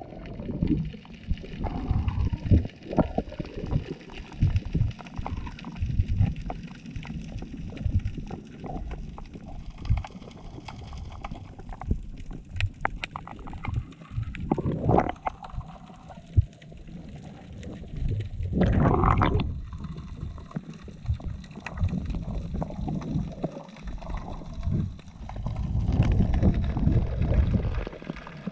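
Muffled rushing and gurgling of water around a submerged GoPro camera, heard through its housing, with many uneven low thumps. There are two louder swishes about fifteen and nineteen seconds in.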